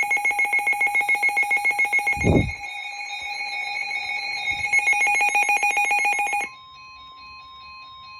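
Emergency alert attention signal: a loud, rapidly pulsing electronic tone that sounds like a ringing bell, with a low falling swoop a little over two seconds in. The pulsing stops abruptly about six and a half seconds in, leaving a faint steady single tone.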